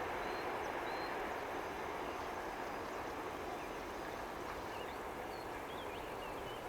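A steady wash of distant vehicle noise, with faint short bird chirps high above it that come more often in the second half.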